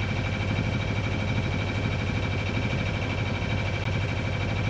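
Sailboat's inboard engine running steadily under way, a low hum with a thin high tone running over it.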